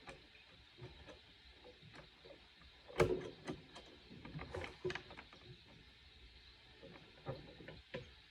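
Scattered small clicks and knocks of parts being handled during work on an old accordion's bass mechanism, the loudest about three seconds in, with a few more near the end.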